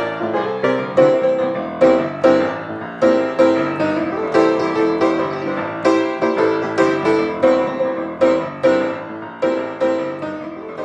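Solo piano music: chords and melody notes struck about twice a second, each note ringing and fading before the next.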